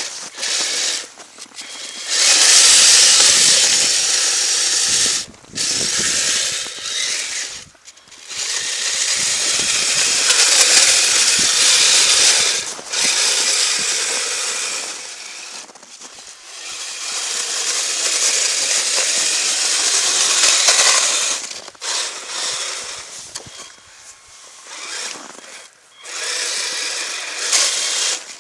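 Kyosho Blizzard FR radio-controlled snowcat driving in snow: its small electric motor and gearbox whir and its plastic tracks rattle. It runs in several bursts of a few seconds each with short pauses, as the throttle is worked.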